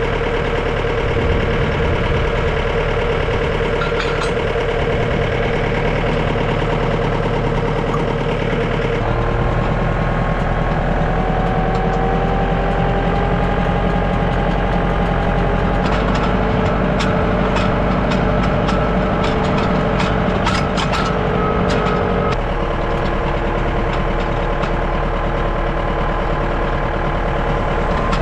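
Diesel tractor engine running steadily, its pitch stepping to a new speed about a third of the way in and again about two-thirds in. A run of sharp clicks sounds around the middle.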